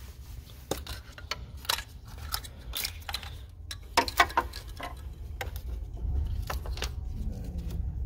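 Scattered light clicks and taps of plastic and metal as gloved hands work among wiring connectors and parts in a car's engine bay, over a steady low rumble.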